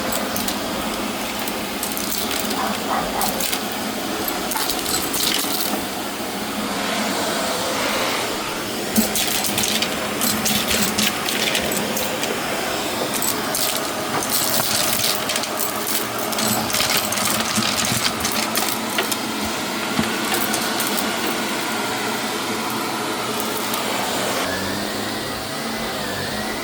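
Shark vacuum cleaner running, with a dense stream of clicks and rattles as hard bits of debris are sucked up, thickest in the middle stretch; near the end a steady whine comes in.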